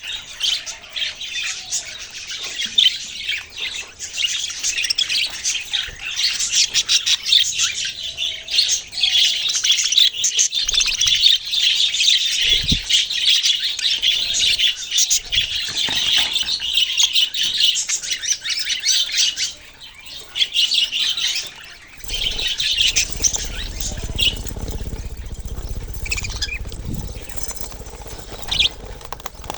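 Several small parrots chirping and chattering together, a dense, continuous twitter that thins out about twenty seconds in; after that, scattered chirps over a low rumble.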